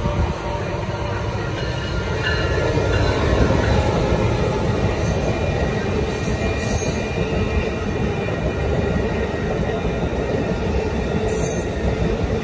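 Amtrak Pacific Surfliner passenger train, led by a Siemens SC-44 Charger diesel locomotive, rolling past at speed: a loud, steady rumble of bilevel cars' wheels on the rails.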